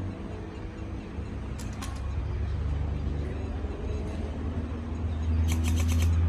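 Airsoft guns firing over a steady low rumble: a few sharp snaps about two seconds in, then a quick burst of about seven shots near the end as the rumble grows louder.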